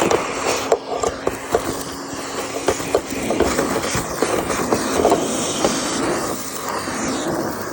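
Gutter vacuum running with a steady rushing hiss, with sharp clicks and rattles of debris being sucked up the hose, thickest in the first few seconds.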